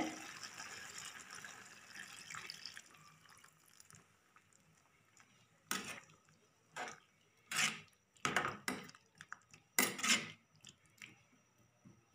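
Thick coconut milk poured into an aluminium pot of ash plantain curry, a soft liquid pour fading over the first few seconds. Then a metal spoon stirring the curry and knocking against the pot, with several sharp clinks.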